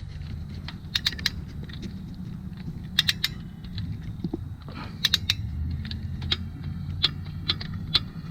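Ratcheting wrench clicking in short irregular runs as a bolt on the timing chain guide of the 3.6L V6 is turned down and torqued, over a low steady hum.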